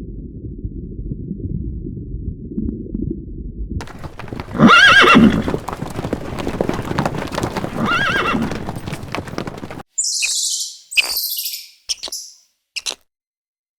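A horse neighing twice: a loud whinny about five seconds in and a second one near eight seconds, over a dense rustling background. Before it there is a low, muffled rumble, and in the last few seconds a few short, high bird chirps.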